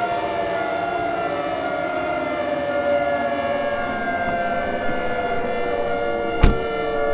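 Several civil defense warning sirens sounding together, their overlapping tones slowly sliding down in pitch. A sharp thump comes about six and a half seconds in.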